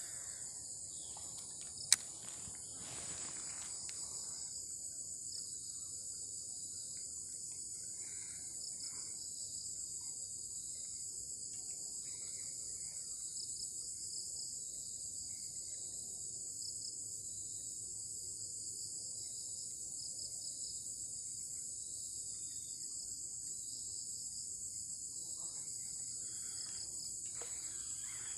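Steady high-pitched chorus of insects buzzing, with a faint pulsing in it, and a single sharp click about two seconds in.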